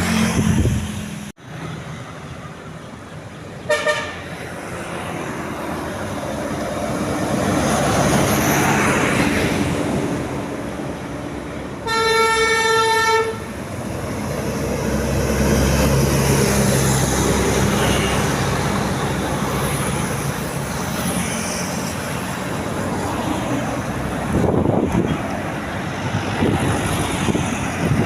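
Tour buses passing with engine and road noise that swells and fades. A telolet musical air horn sounds briefly about four seconds in, then holds one steady tone for just over a second near the middle.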